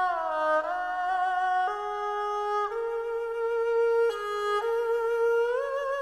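Background music: a slow solo melody of long held notes with a wavering vibrato, gliding from one note to the next.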